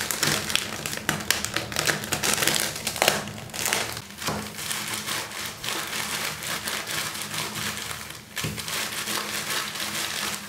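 Potato chips crackling and crunching inside their plastic snack packet as a rolling pin is rolled over it, crushing them to crumbs, with the packet crinkling. The crackling runs densely, easing briefly about four and eight seconds in.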